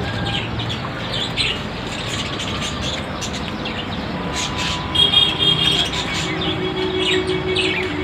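Small cage birds chirping repeatedly over a steady background rumble, with a brief, clearer whistled call about five seconds in.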